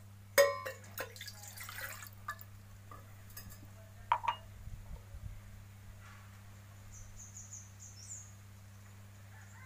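A glass clinks against a stainless steel mug with a ringing note, then coloured water is poured from the glass into the mug for about a second and a half. A few seconds in, the emptied glass is set down with a second ringing clink. Near the end a bird chirps a few times, over a steady low hum.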